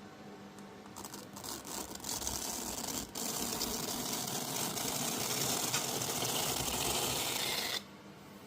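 Printed fabric being peeled off the printer's magnetic build sheet: a long, noisy rip lasting about seven seconds, with a brief break about three seconds in.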